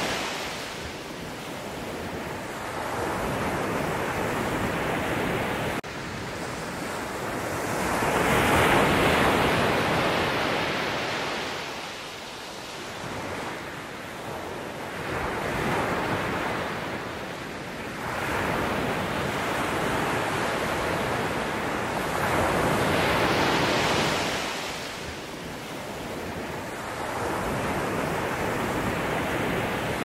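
Ocean waves breaking and washing over a rocky shore, the surf swelling and falling back every few seconds.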